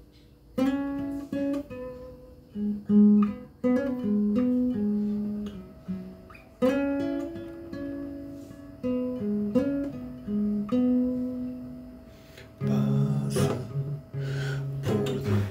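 Acoustic guitar played fingerstyle: plucked single notes and arpeggios that ring and fade, then a few strummed chords near the end.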